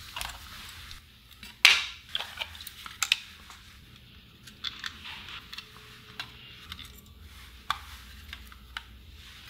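Clicks, taps and light rattles of a small transistor radio being taken apart by hand: its batteries pulled out, its case opened and small screws undone with a screwdriver. The sharpest click comes about a second and a half in.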